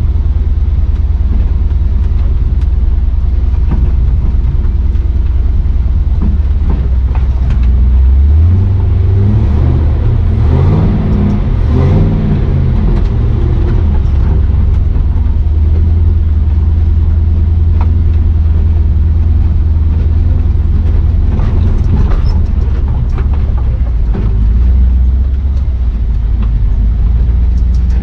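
Chevrolet 6.0 Vortec V8 in a square-body 4x4 truck pulling steadily at low speed, the revs rising and falling a few times about a third of the way through. Short knocks and rattles are scattered throughout.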